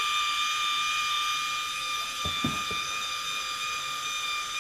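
MyFootbot foot scrubber's small electric motor running its bristle brush, a steady whine.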